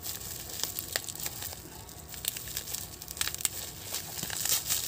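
Clear plastic wrapping crinkling and rustling as a small parcel is unwrapped by hand, with a run of sharper crackles in the second half.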